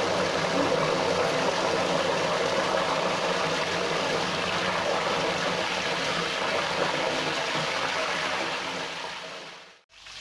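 Potato slices deep-frying in hot oil, sizzling and bubbling hard as the salted water just poured over them boils off. The sizzle fades and cuts out near the end.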